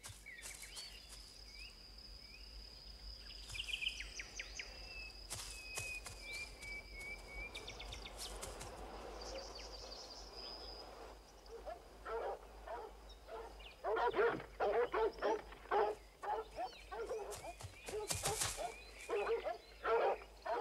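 Hunting dogs barking in quick, irregular bursts from about twelve seconds in, loudest around the middle of that stretch. Before they start there is only faint high chirping of birds.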